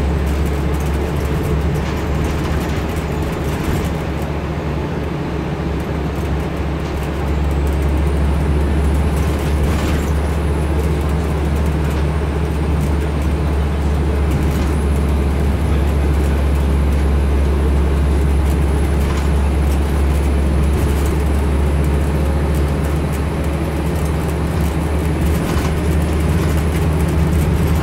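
Scania N230UD double-decker bus heard from inside the upper deck: its five-cylinder diesel engine and road noise make a steady low drone, which gets louder about seven seconds in.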